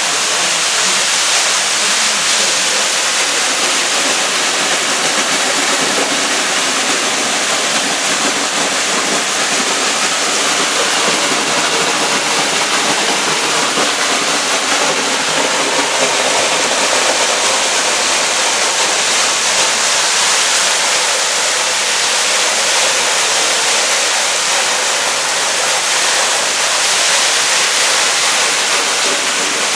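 Torrential rain pouring down in a steady, loud, unbroken hiss during a record flash-flood downpour.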